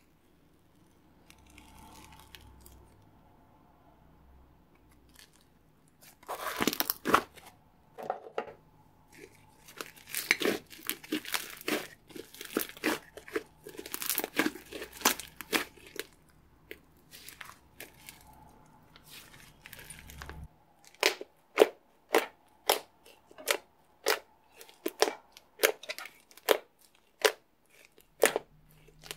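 Old, aerated green slime full of air bubbles being poked, squeezed and kneaded by hand, crackling and popping as the trapped bubbles burst. It is faint at first, crackles densely while squeezed between the palms, then gives a string of sharp pops, about one and a half a second, as it is pressed on a flat surface.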